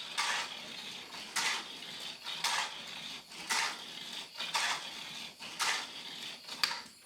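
Hot Wheels Sizzlers '70 Plymouth 'Cuda T/A, a battery-powered toy car, lapping an orange plastic oval track: a steady high motor whine, with a clattering rush on the track each time the car comes past, about once a second, seven times.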